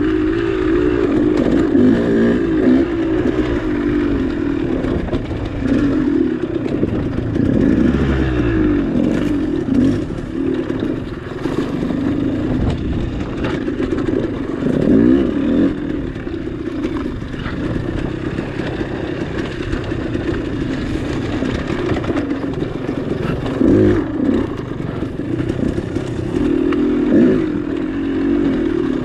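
KTM 200 two-stroke dirt bike engine revving up and down over and over as the throttle is worked, with occasional knocks and rattles.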